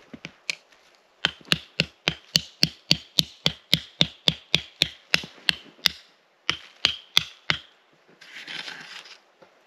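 A tent stake being driven in with a run of quick hammer blows, about three and a half a second, then a short pause and four more strikes. A brief scrape follows near the end.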